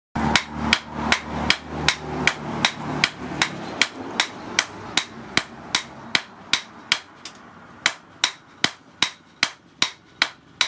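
Hand hammer and sledgehammer striking in turn on a red-hot steel bar on an anvil, a steady run of blows about two and a half a second, each with a short metallic ring.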